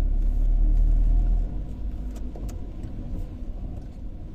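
Low rumble of a car driving on a wet road, heard from inside the cabin. It is heavier for the first second and a half, then eases, with a couple of faint ticks near the middle.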